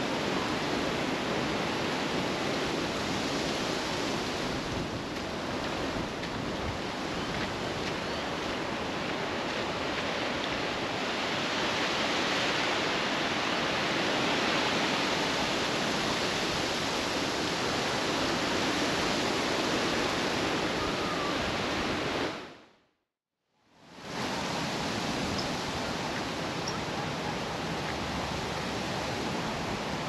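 Strong gusty wind buffeting the microphone, a steady rushing noise with rumbling low down. It fades out for about a second roughly three-quarters of the way through, then fades back in.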